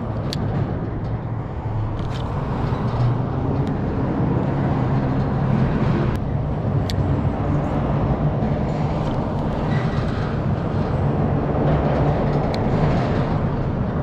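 Steady rumble of road traffic passing over the bridge, with a few light, sharp clicks scattered through it.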